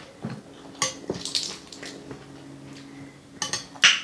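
Spoons and forks clinking and scraping on ceramic plates during a meal, in scattered short clicks with a louder cluster near the end, over a faint steady hum.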